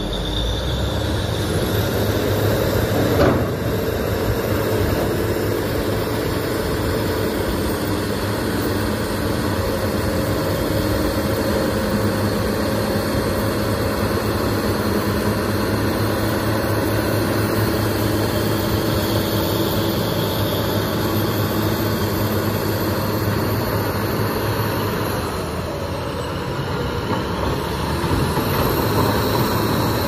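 BEML crawler bulldozer's diesel engine running steadily under load as the dozer works the ore pile, with one sharp clank about three seconds in.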